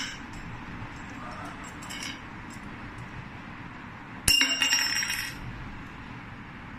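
Small 12V DC solenoid cabinet lock's spring latch snapping on its hooked metal catch about four seconds in: one sharp metal click that rings briefly. Before it, a few faint clicks and taps of the metal lock parts being handled.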